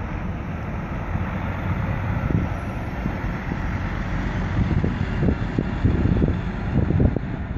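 Articulated lorry's diesel engine running at low revs as it makes a slow U-turn across the road, over a steady traffic rumble, growing louder in uneven pulses in the second half, with wind noise on the microphone.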